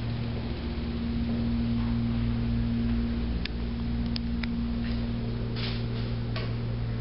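Steady low mechanical hum holding a fixed tone, with a few light clicks and taps in the second half.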